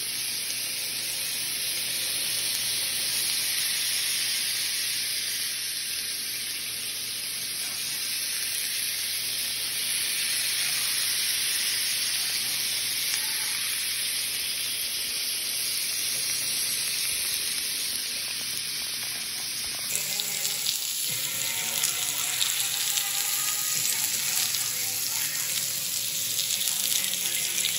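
Chicken and vegetable kabobs sizzling on a hot grill pan: a steady frying hiss that turns more crackly and spitting about twenty seconds in.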